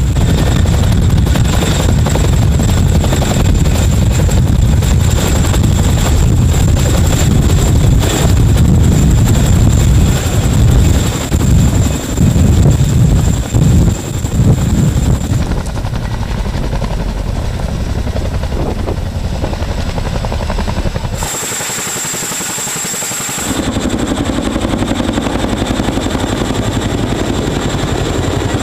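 Boeing CH-47 Chinook tandem-rotor helicopter hovering close by: heavy rotor beat and turbine noise with a steady high whine. The sound shifts abruptly several times, growing thinner a little past halfway and briefly losing its low rumble about three quarters through.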